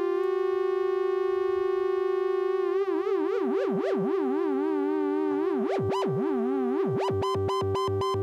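Double Knot v3 synthesizer: one oscillator holds a steady tone while the other's pitch, driven by the clock's square wave through the slew circuit, begins about two and a half seconds in to swoop up and down in smooth glides. About seven seconds in, the glides give way to quick, hard jumps between two pitches, as the square wave's edges are no longer rounded off.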